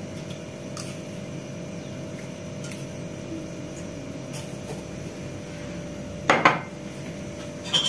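A few faint light ticks as salt is shaken from a jar over a pot, then a short clatter a little over six seconds in as the salt jar is set down on the countertop, with a brief click near the end.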